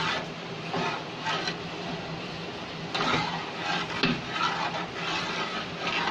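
A metal ladle stirring and scraping around a metal pot of thin yogurt-and-gram-flour kadhi in repeated strokes. The kadhi is kept stirred constantly so the yogurt does not split.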